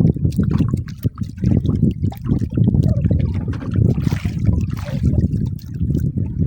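Water lapping and splashing against the hull of a small boat, an uneven, choppy sloshing with small knocks.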